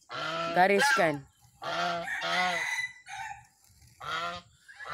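Domestic goose honking: several short honks spaced irregularly, two close together about halfway in and another near the end.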